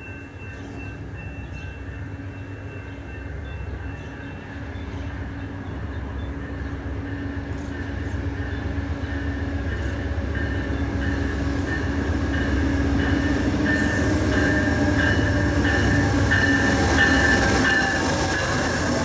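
Amtrak passenger train drawing near, its low rumble growing steadily louder, with high thin squealing from the wheels on the rails building in the second half.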